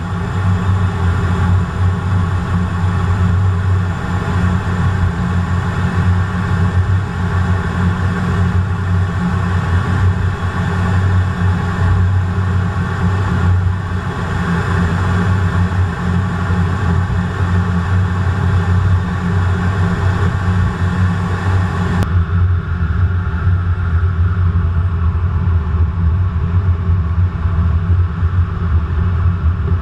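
Steady low rumble inside the cockpit of a Eurofighter Typhoon in flight, the noise of its twin Eurojet EJ200 turbofans and the air around the canopy. About three-quarters of the way through, the sound changes abruptly as the higher hiss drops away and the rumble carries on.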